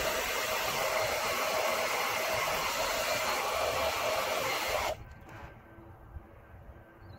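Handheld hair dryer blowing steadily with a whirring motor, then switched off about five seconds in. It is heating a vinyl decal on a motorcycle fuel tank to soften its adhesive.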